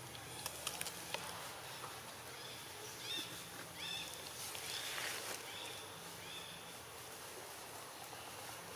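Outdoor woodland ambience. A few sharp clicks come in the first second or so, then short high chirping calls around three to four seconds in, and a brief hiss-like burst of noise near five seconds.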